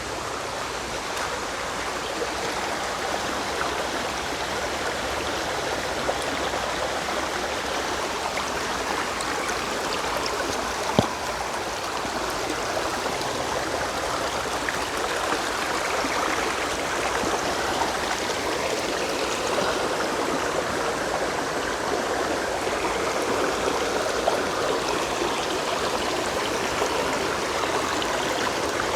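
Creek water flowing over rocks, a steady rush. There is a single sharp click about eleven seconds in.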